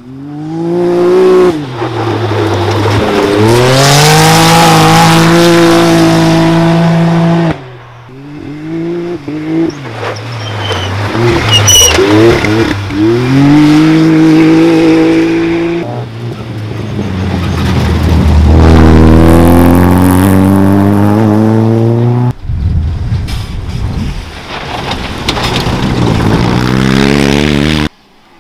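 Rally cars and side-by-side buggies passing one after another on a gravel stage, engines revving hard, their pitch climbing through the gears and dropping on lifts and shifts. Each pass is cut off abruptly and replaced by the next.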